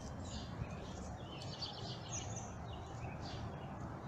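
Birds chirping, a handful of short calls scattered through, over steady low background noise.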